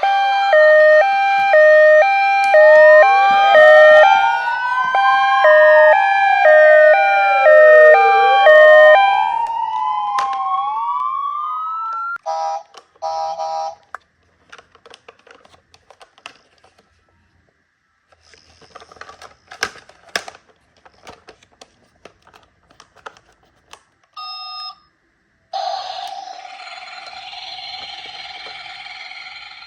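Toy emergency-vehicle minicar sirens sounding together: a two-tone hi-lo ambulance-style siren overlapping with a wail that rises and falls, loud for about the first ten seconds. After that come scattered clicks and knocks, a few short beeps, and near the end several seconds of a steady buzzing hum.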